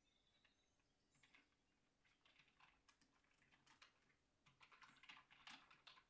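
Faint typing on a computer keyboard: irregular runs of key clicks starting about a second in and growing denser near the end.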